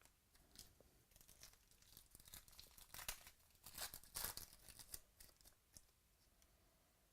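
Baseball card pack wrapper being torn open and crinkled, a run of crackly rustles that is loudest about three and four seconds in.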